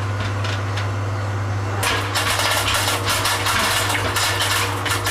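Candlenut-cracking machine running: a steady motor hum under a dense clatter of hard nuts rattling and cracking inside, which gets busier about two seconds in.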